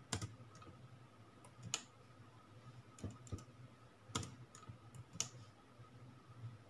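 Keys being pressed on a Huawei MateBook D15 laptop's built-in keyboard: about half a dozen separate, irregularly spaced clicks over a faint steady hum.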